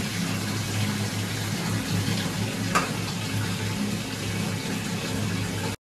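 Bath tap running, water pouring steadily into a filling bathtub, with a steady low hum beneath it. A single small knock comes about three seconds in, and the sound cuts off suddenly at the very end.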